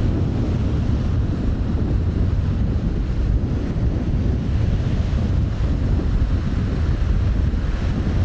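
Strong wind buffeting the microphone in a steady low rumble, over the wash of waves in a rough sea.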